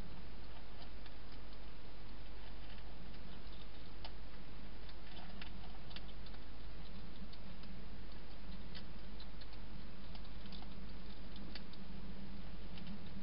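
Wild hedgehog eating from a bowl inside a plastic feeding box: irregular small clicks and crunches of its chewing, several a second at times, over a steady hiss and low hum.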